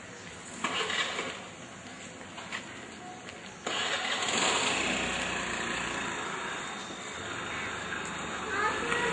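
Street noise from motor vehicle engines. It jumps up suddenly about three and a half seconds in and then slowly eases off.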